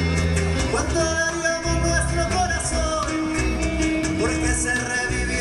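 Live Latin American folk music from a small band of acoustic guitars, violin, electric bass and cajón, playing steadily with a strong bass line.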